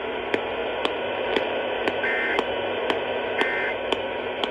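AM radio static hiss with sharp clicks about twice a second. About two seconds in, and again about a second and a half later, a short raspy chirp of Emergency Alert System data tones: the end-of-message code that closes the warning broadcast.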